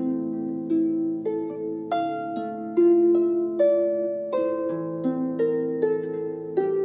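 Solo harp played by hand: a gentle melody with accompaniment, about two plucked notes a second, each note ringing on into the next.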